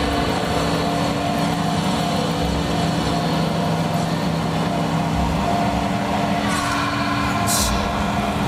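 Steady mechanical rumble with a constant low hum. Two short bursts of hiss come near the end.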